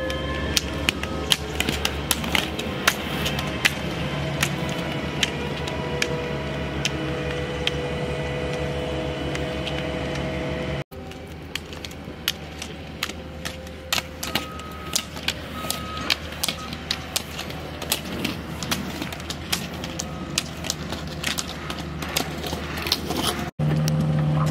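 Roller skis rolling on asphalt, with the sharp, irregular clicks of ski-pole tips striking the pavement as skiers skate past.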